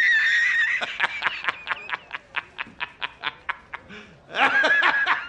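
A man's loud, hearty laughter from a meme clip. It opens with a high, wavering drawn-out cry, breaks into a rapid run of short 'ha' bursts about five a second, and rises into another high cry near the end.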